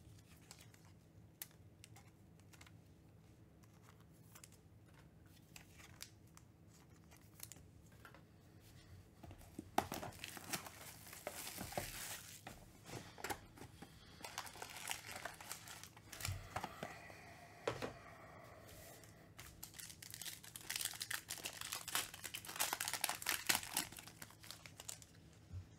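Crinkling cellophane shrink wrap being pulled off a sealed box of trading cards, then a foil card pack being torn open near the end. The first few seconds are quiet apart from a few light clicks.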